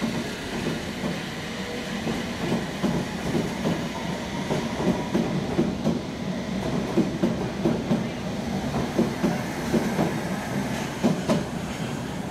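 London Underground S Stock train pulling out of a platform, a steady rail rumble broken by a run of rhythmic wheel clacks over the rail joints as the cars roll past.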